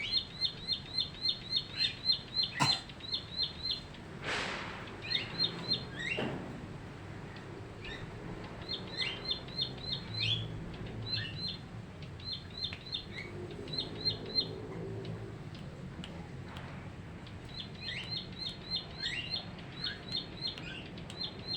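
Caged bar-winged prinia singing: a rapid series of high, repeated chirps, about four to five a second, in several bouts with pauses between them.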